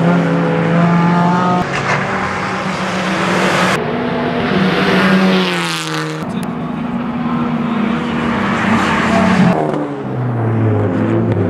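Racing car engines at high revs passing by on a circuit, the pitch sweeping down as a car goes past about five seconds in. The sound changes abruptly twice, from one car to another.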